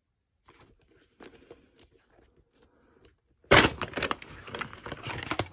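Plastic VHS clamshell case being handled and opened and the videocassette inside it grabbed: light plastic rubbing and clicks for the first few seconds, then, about three and a half seconds in, a sudden louder stretch of crackling plastic clatter and clicks that runs to the end.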